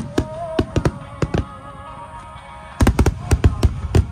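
Aerial firework shells bursting over music. A scattered string of sharp bangs comes in the first second and a half, then a denser volley of about nine bangs from nearly three seconds in.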